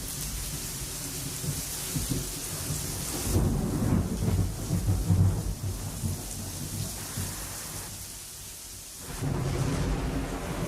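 Thunder rumbling from an approaching thunderstorm cell, swelling loudest about four to five seconds in, easing off briefly near the end and then rumbling again, over a steady hiss of rain.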